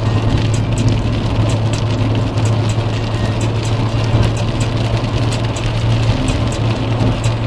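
Car cabin noise while driving on a wet motorway: a steady low drone of engine and tyres on the wet road, with rain ticking on the windscreen as frequent small clicks.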